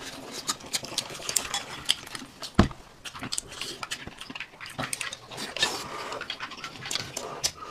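Eating sounds at a meal table: chopsticks and a spoon clicking against bowls, plates and a glass mug, with chewing and sips of soup in between, and one louder knock on the table about two and a half seconds in.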